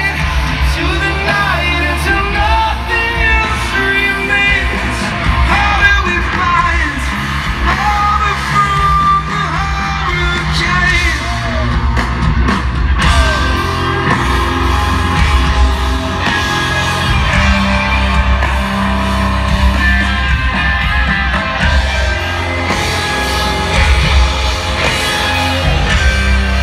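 Live rock band playing through a concert PA: a singer over distorted electric guitars, drums and heavy bass, heard from far back in the crowd.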